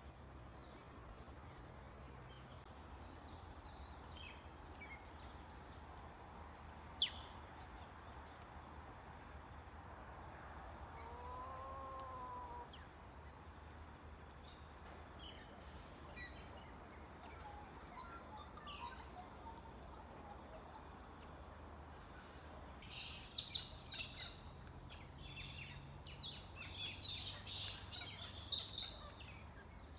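Wild birds calling: scattered faint chirps, one sharp high note about seven seconds in, and a smooth rising-and-falling call near the middle. A busy stretch of chirping and twittering fills the last several seconds. A faint steady low hum runs underneath.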